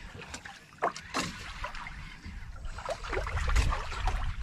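Ambient sound of a small wooden outrigger fishing boat at sea: a low, uneven rumble of wind and water with scattered light knocks and clicks.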